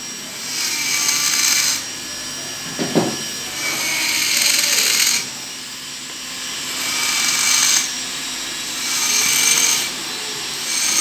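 Dental lab micromotor handpiece with a bur grinding retention grooves into the base of a stone dental model. The motor runs steadily while the bur bites in five passes of a second or so each, and there is a short knock about three seconds in. The grooves are cut so the model will lock into its base.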